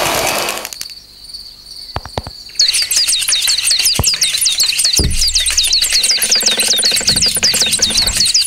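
Cartoon sound effects: a rapid run of high, cricket-like chirps, about four or five a second, starts suddenly about two and a half seconds in. A few dull thuds come through it as apples drop onto the owl's branch.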